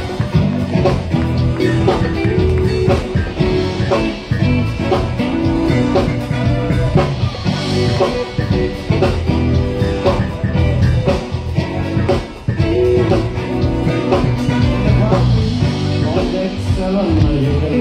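Live party band playing an upbeat song with a steady drum beat, guitar and singing.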